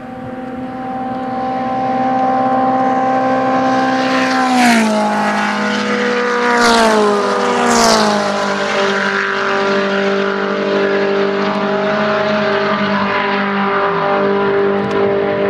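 Several midget race cars' engines running hard; the sound builds over the first couple of seconds. Three cars pass close one after another, about 4.5, 6.5 and 8 seconds in, each engine note dropping in pitch as it goes by. After that the engines carry on steadily at a lower pitch.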